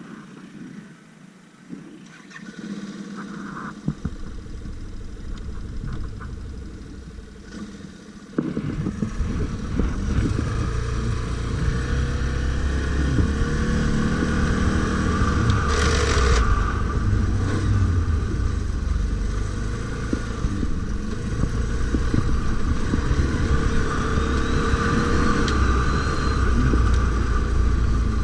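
ATV engine running off-road, getting much louder and heavier about eight seconds in, then revving up and down.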